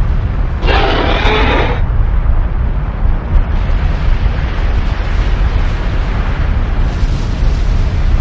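Volcano eruption sound effect: a loud, continuous deep rumble with a noisy crackle over it, and a brighter burst lasting about a second near the start.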